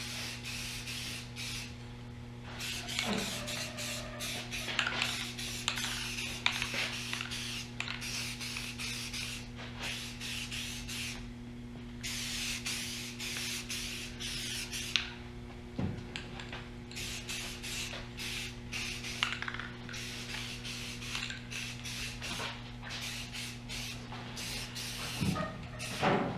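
Aerosol spray can hissing in repeated spurts with short pauses, as trim paint or adhesion promoter is sprayed onto plastic dashboard parts. A steady low hum runs underneath.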